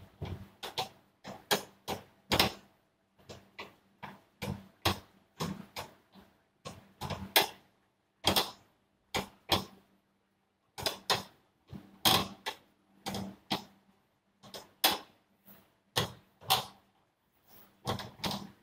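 Irregular mechanical clicking and knocking, in short runs of a few clicks a second with brief pauses, as the sealing-head height handle of a tabletop continuous induction cap sealer is turned. A faint steady hum from the running machine lies under the clicks.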